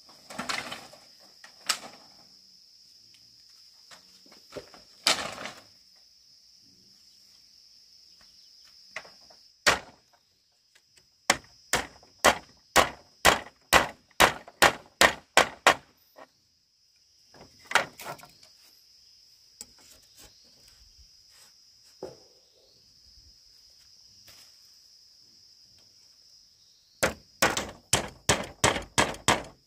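Repeated sharp tool blows on bamboo: a few single knocks, then a run of about ten evenly spaced strikes roughly two a second in the middle, and a quicker run near the end. A steady high-pitched drone of insects goes on underneath.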